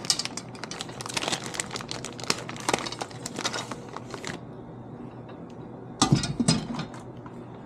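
Plastic packaging crinkling and small metal hardware clicking as the vise's parts are unwrapped and handled, with a louder cluster of rattling clicks about six seconds in.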